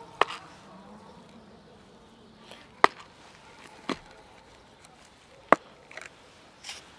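Half a dozen sharp, separate plastic clicks and taps from a clip-lid plastic food container being handled and its lid clips unfastened.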